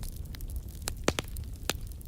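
Wood fire crackling over a low, steady rumble of flame, with scattered small snaps and two louder pops, one about a second in and one near the end.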